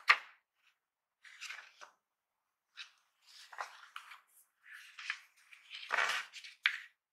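Paper rustling in short bursts as gloved hands turn the pages of a printed laptop user guide and close it, with a few sharp clicks. About six seconds in comes the loudest rustle, then a sharp tap, as the paper booklets are gathered together.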